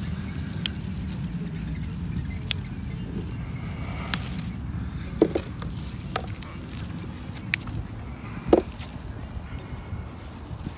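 Strawberry stems snapping as berries are picked by hand: about eight short, sharp snaps scattered through, the loudest late on, over a steady low rumble.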